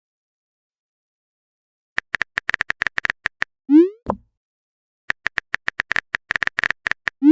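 Phone-keyboard typing clicks in two quick runs, each followed by a short rising 'pop' message-sent sound effect from a chat app. The first two seconds are silent.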